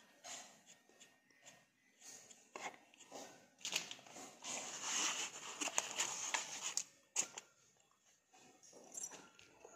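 Unboxing handling sounds: scattered clicks of a plastic mount and packaging, then a louder stretch of rustling and scraping in the middle as the device is pulled from its box insert.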